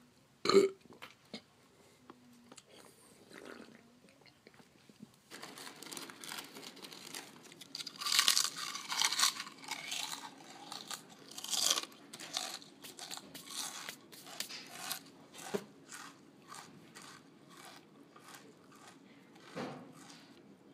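A person chewing crunchy food loudly, with open-mouthed crunching in quick rhythmic strokes. A single sharp crunch comes about half a second in, and the chewing gets loudest about eight to twelve seconds in.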